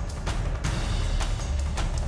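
Background music with deep drum hits in a steady beat and a heavy low bass.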